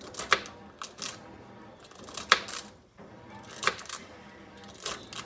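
Knife chopping celery on a cutting board: a handful of sharp, irregularly spaced knocks, the loudest a little past two seconds in.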